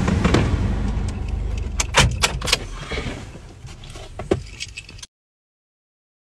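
Cabin noise of a Suzuki car, engine and road rumble, fading as the car slows, with a quick run of clicks and knocks about two seconds in and another knock near four seconds. The sound then cuts off to complete silence.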